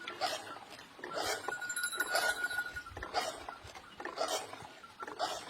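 Rhythmic clinking about once a second from camel-drawn well-lifting gear at work, with a brief high squeal in the first half.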